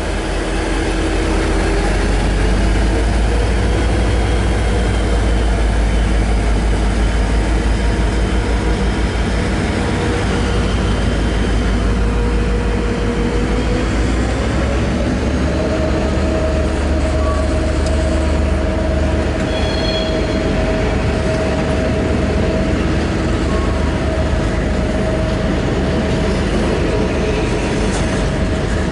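V/Line N class diesel-electric locomotive pulling out, its engine giving a heavy low rumble, followed by its carriages rolling past. About halfway through, a steady tone sets in and holds.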